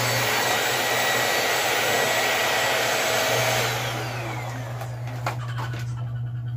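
Corded stick vacuum cleaner running on a tiled floor. A little past halfway its motor winds down with a falling whine and runs on more quietly, with a few knocks as the vacuum is handled.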